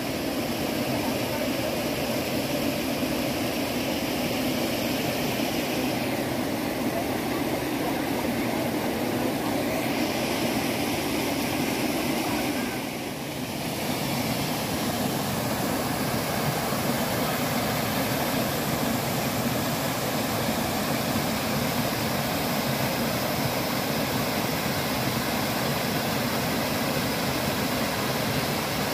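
Steady rush of a small waterfall splashing into a rock pool, briefly dropping in level about halfway through.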